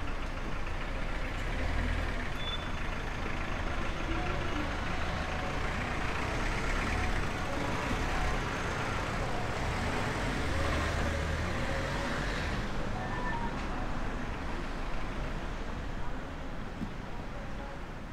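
Road traffic on a city street: a motor vehicle's engine rumble and tyre noise passing, with the higher hiss dropping away about two-thirds of the way through while a low rumble carries on.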